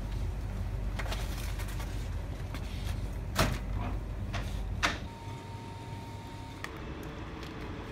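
Supermarket background noise with a low hum and a few sharp clicks, then a steady electronic tone lasting about a second and a half, about five seconds in.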